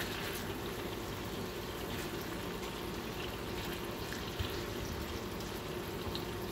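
Butter and meat juices sizzling and bubbling steadily in a nonstick skillet around cubes of sous-vide ground beef as they are turned with a silicone spatula, with a light tap about four and a half seconds in.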